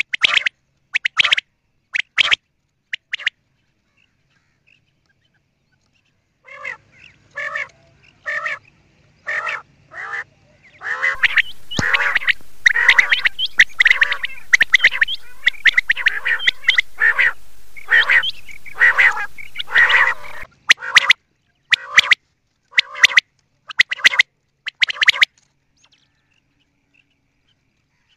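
Common quail calling: short, rasping calls repeated in quick runs, pausing for a few seconds early on and again near the end, with a faint hiss behind the busiest stretch in the middle.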